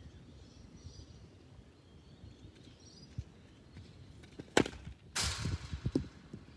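A cricket bat striking the ball once with a sharp crack about four and a half seconds in, followed by a rustling, scraping noise lasting under a second and a few soft thumps.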